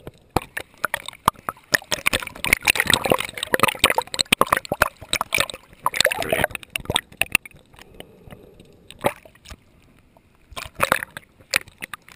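Underwater sound heard through a camera's waterproof housing while snorkeling: muffled water sloshing and gurgling with a dense crackle of sharp clicks. The crackle is busiest in the first half and thins out later, with a few louder clicks.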